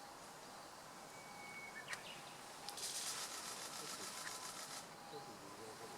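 Quiet outdoor ambience with a sharp click about two seconds in, followed by a high, rapid rasping buzz lasting about two seconds.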